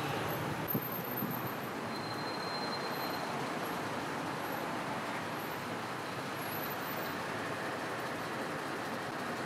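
Steady background noise of road traffic, with a brief click about a second in.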